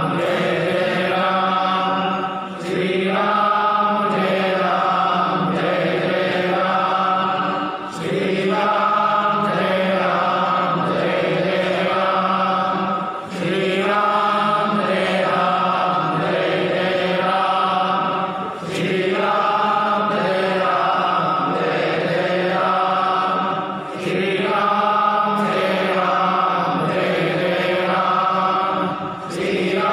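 Several male voices chanting Hindu ritual mantras together on a steady held pitch, with a short break for breath about every five seconds.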